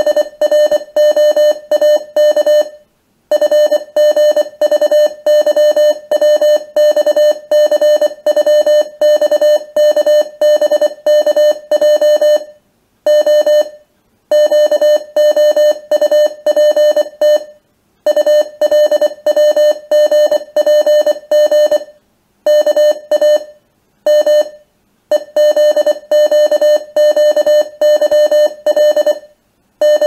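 Computer-generated Morse code from CrypTool 2's Morse code component: a single steady-pitched beep keyed rapidly on and off in dits and dahs, sounding out an Enigma-encrypted message. A few short silences between letter groups break the sequence.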